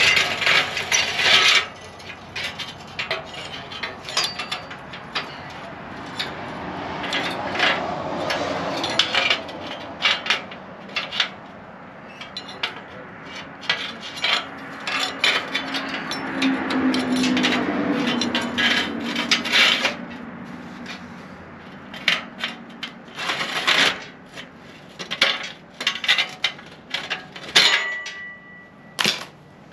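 Hand tools clinking, tapping and scraping on metal parts: a string of sharp knocks and clicks at irregular intervals.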